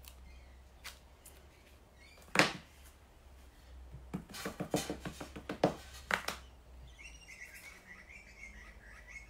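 Paper cards and a stamp being handled on a craft mat. There is one sharp knock about two and a half seconds in, then a run of quick taps and paper rustles, and a faint wavering high chirping near the end.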